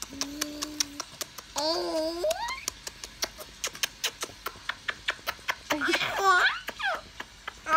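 Baby laughing and squealing in a few drawn-out bursts, the loudest and highest near the end, over a steady run of quick little clicking smacks.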